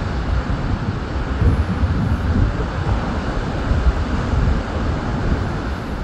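Wind buffeting the microphone, a loud uneven rumble, with the wash of surf breaking on the beach beneath it.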